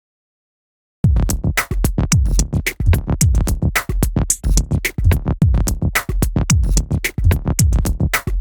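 Cinematic electronic percussion loop: fast, dense drum-machine hits with deep kicks that drop in pitch, starting about a second in after a moment of silence.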